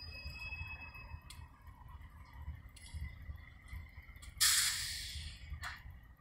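GE B23-7 diesel locomotives creeping along the track with a low, uneven engine rumble and a thin high metallic squeal from the wheels that fades about a second in. A sudden loud hiss comes in about four seconds in and dies away over about a second.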